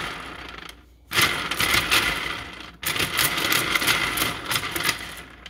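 Wooden alphabet blocks spinning on the metal rods of a toddler activity cube after being swiped by hand: rapid clattering clicks in three runs, each starting loud and dying away as the blocks slow.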